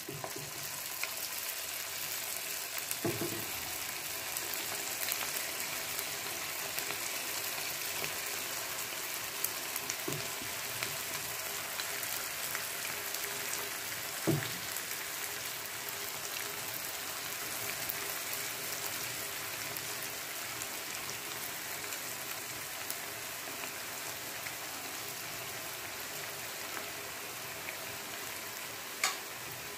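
Masala-coated cauliflower pieces deep-frying in hot oil: a steady sizzle of bubbling oil, frying them until crisp. A few soft knocks sound over it, the loudest about fourteen seconds in.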